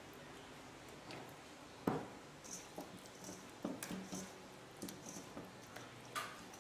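Hands rubbing soy sauce into raw whole chicken legs in a stainless steel bowl: a run of short wet squishes and slaps, with a sharper knock about two seconds in.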